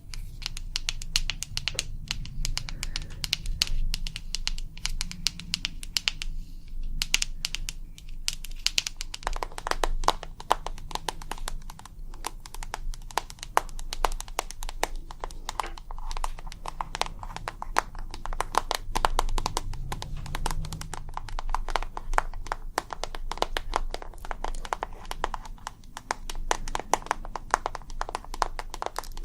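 ASMR tapping: rapid, dense light taps, many a second, on a hard object. About nine seconds in the taps turn duller and lower in pitch.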